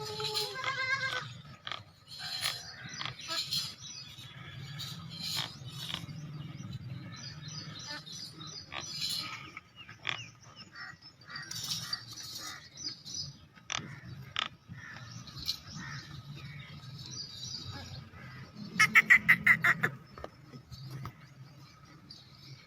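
Makhi Cheeni goats bleating on and off, with a short call at the start and a loud, pulsing bleat about nineteen seconds in, over scattered knocks and rustling.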